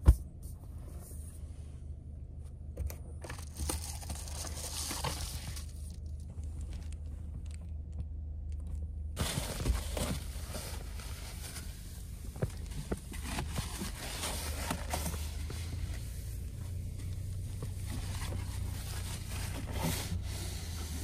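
A paper towel crinkling and rubbing against a car's rear window glass, wiping condensation off the inside, in irregular strokes that come thicker from about halfway through, over a steady low hum.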